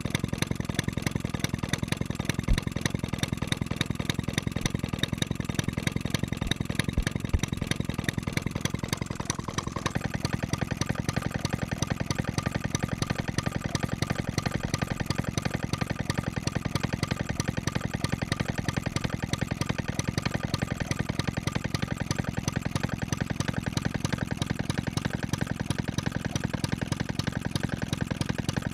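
1920s Jacobsen hit-and-miss engine, a small air-cooled single-cylinder, running steadily and firing in a rapid, even rhythm. About ten seconds in, a faint whine rises and then holds steady.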